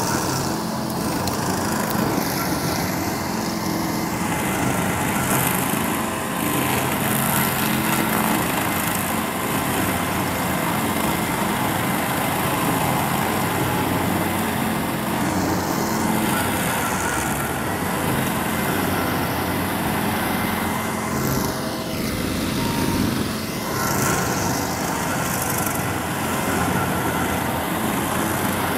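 Tracked stump grinder running steadily, its cutting wheel grinding into a tree stump. The engine's pitch dips and recovers once, about three quarters of the way through.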